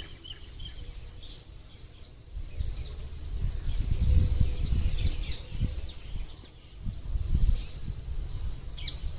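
Birds chirping and insects, with irregular low thumps and rumbling from about two seconds in.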